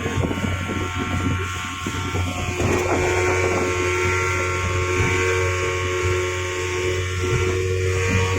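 Speedboat engine running steadily, heard from on board the boat.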